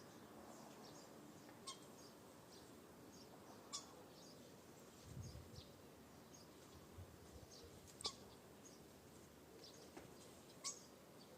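Faint scattered chirps of small birds, starlings and sparrows, with a few sharper short calls every two to three seconds. A brief low rumble about five seconds in.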